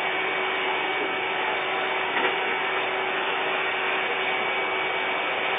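Vacuum cleaner running steadily: an even rush of air with a steady motor whine.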